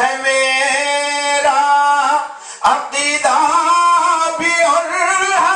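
A man's unaccompanied voice singing Urdu poetry in tarannum style, holding long notes in two phrases with a short breath between them.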